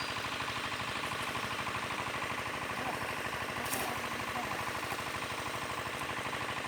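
An engine running steadily with an even, fast throb, and a short click a little past halfway.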